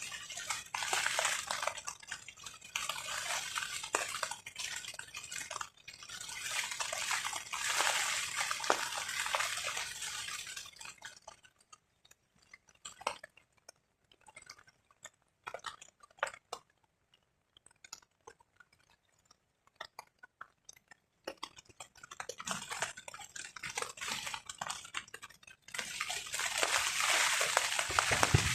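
Rain and wind on a tarp: waves of pattering rain come and go, easing about eleven seconds in to separate drips striking the tarp, then building back up over the last few seconds.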